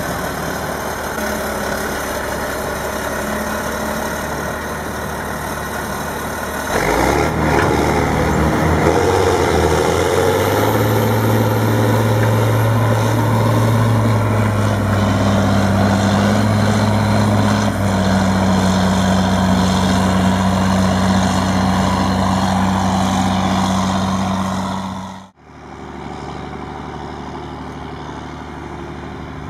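Heavy diesel engine running. About seven seconds in it gets louder and revs up, then holds a steady higher speed under load. Near the end there is a sudden cut to a quieter engine hum.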